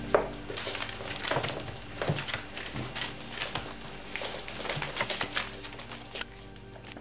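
Five-week-old beagle puppies scrabbling about a plastic dog bed: irregular claw taps and knocks and newspaper rustling, with a sharp knock just after the start.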